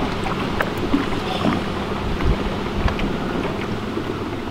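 Wind blowing across the microphone, uneven and gusty, over a small boat on rippling water, with a few faint clicks.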